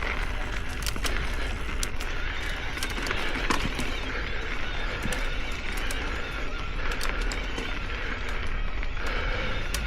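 Electric mountain bike riding on a dirt trail: a steady low rumble of tyres and air on the bike, with scattered clicks and rattles from the bike and trail surface.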